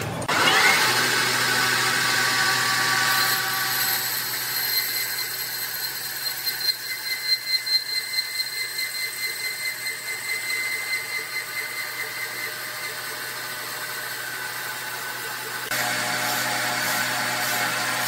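Sawmill machinery running with a steady high whine. A pitch rises just after the start, a run of rhythmic pulses comes in the middle, and the sound changes abruptly near the end.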